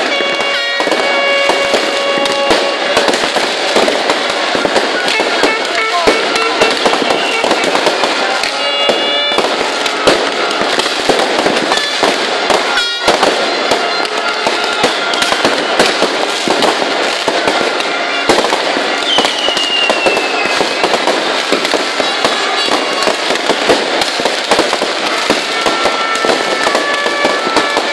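Many fireworks crackling and popping at once in a dense, unbroken barrage. Scattered held tones and one falling whistle-like glide, about twenty seconds in, sound over the crackle.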